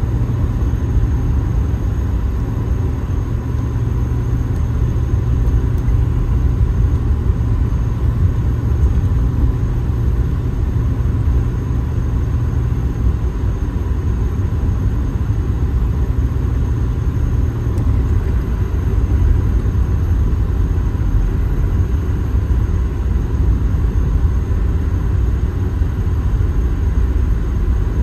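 Car driving on a snow-covered highway, heard from inside the cabin: a steady low rumble of tyre and engine noise.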